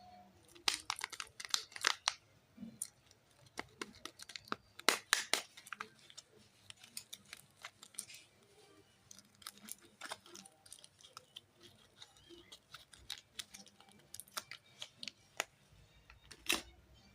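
Soap packaging being handled and opened by hand: irregular crinkles, crackles and sharp clicks, bunched in quick clusters about a second in and around five seconds, with single ticks scattered between.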